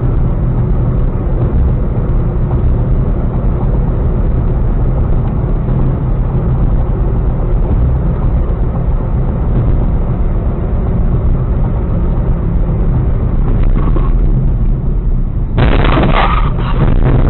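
Loud, steady road and engine rumble of a car driving at highway speed, heard from inside the cabin. Near the end it turns louder and harsher.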